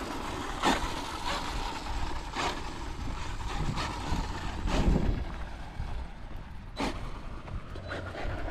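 Radio-controlled electric truck running over rough dirt, with a steady low rumble and several sharp knocks as it bounces.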